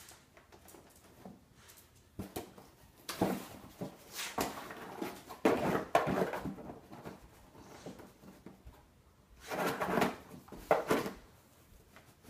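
A schnauzer pawing, nosing and biting at a cardboard box, scraping and rustling the cardboard and knocking the box about, in three spells with quieter pauses between.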